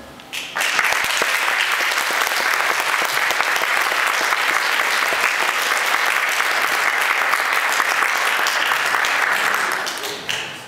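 Audience clapping. It starts about half a second in and fades away near the end.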